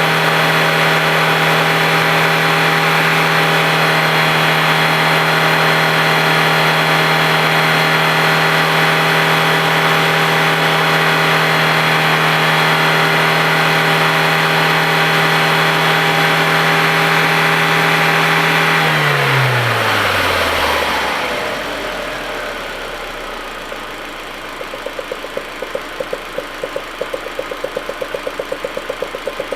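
Audi A4 1.8T turbocharged four-cylinder engine held at steady high revs, then let go about 19 seconds in so the revs fall quickly to idle. At idle it runs with a regular pulse about four times a second, in keeping with the rough idle the car has.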